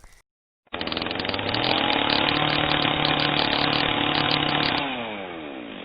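Two-stroke chainsaw starting up from a cut, climbing to full throttle within about a second and running there steadily; near the end the throttle is released and the engine winds down, its pitch falling.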